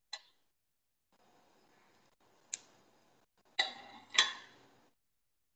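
A spoon clicking and clinking against a plate as stuffing is mixed on it: four separate clicks, the last two louder and ringing briefly.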